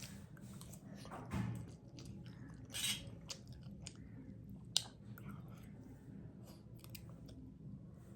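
A person chewing a mouthful of instant noodles up close, with wet mouth clicks and smacks. A louder chewing burst comes about a second and a half in and another about three seconds in, and a single sharp click comes near five seconds.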